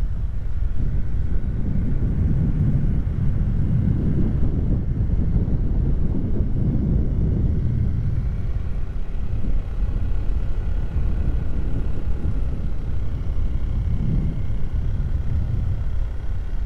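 Motorcycle riding along a road: a steady low rumble of engine and road noise.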